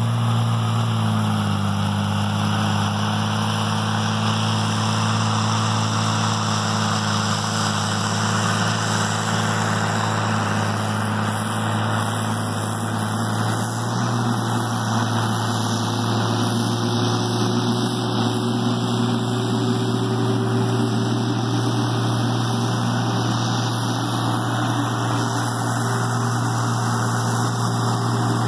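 Tigercat 720E wheeled feller buncher's diesel engine running steadily at working revs, with a steady mechanical whir over it. The engine note dips slightly about a second in, and a faint whine slowly rises in the second half.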